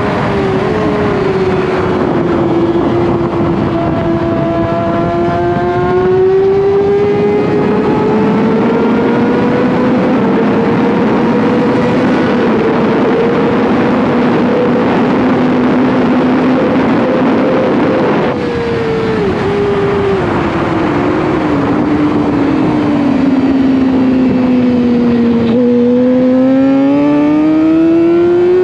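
600 cc sport bike engine at racing speed, heard on board over a heavy rush of noise. Its pitch falls, climbs and holds high for a long stretch, then drops in a few quick steps as the gears go down about two-thirds of the way in, and rises steadily again near the end under acceleration.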